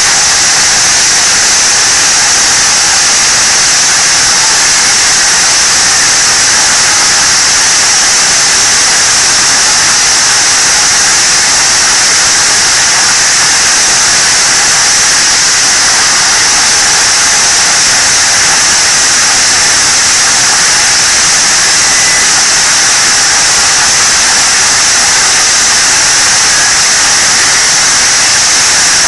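A loud, steady hiss with a bright, high edge that holds unchanged throughout.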